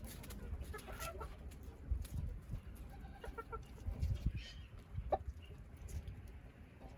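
Chickens clucking, a few short scattered calls over a low rumble.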